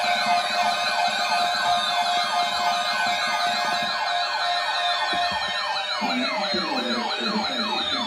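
Several electronic sirens sounding together: fast repeating downward sweeps about three a second over a steady tone and slower falling glides, with a lower wavering siren joining about six seconds in.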